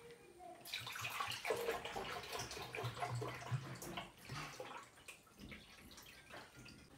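Water poured from a glass bottle into the water tank of an Ariete Moka Aroma espresso machine, filling it before the machine is switched on. The splashing pour starts about a second in and thins out after about four seconds.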